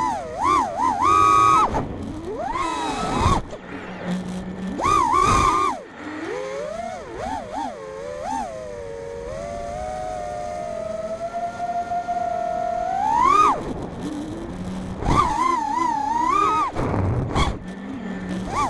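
FPV quadcopter's electric motors whining, their pitch rising and falling with the throttle: several quick surges, then a long steady stretch that ends in a sharp climb in pitch about thirteen seconds in, then more quick bursts.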